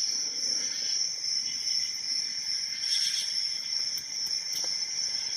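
A steady high-pitched cricket trill in the background, with a few faint ticks about four seconds in from a lock pick and tension wrench working the pins of an aluminium Abus 72/40 safety padlock.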